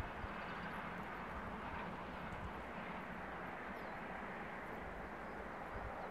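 Passenger train running away along the line, its noise a steady low hiss that slowly dies down as it recedes. A single low thump right at the start.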